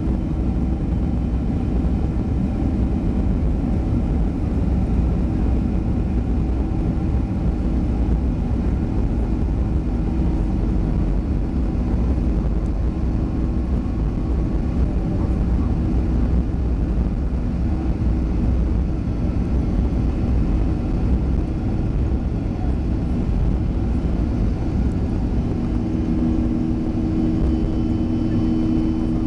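Cabin noise of a Boeing 737-400 rolling on the ground: a steady low rumble from its CFM56 jet engines and undercarriage, with a hum of steady tones that grows stronger near the end.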